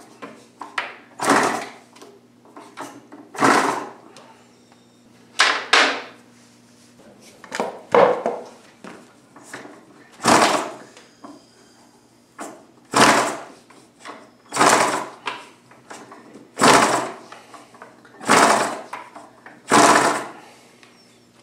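Small spark-ignition four-stroke model engine being flipped over by hand at its flywheel, about ten times, roughly one flip every two seconds. Each flip gives a short sharp burst that dies away within half a second. The engine does not run on between flips.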